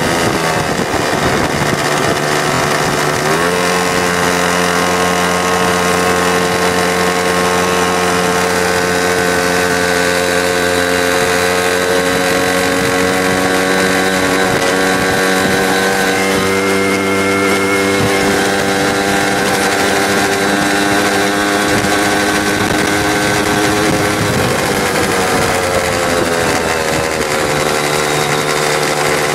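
X-1 pocket bike's small two-stroke engine running at speed. Its pitch climbs about three seconds in and holds steady, then falls about twenty-four seconds in as the bike eases off, and starts rising again right at the end.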